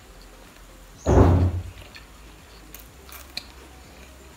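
A single short, muffled thud about a second in, with a few faint clicks later.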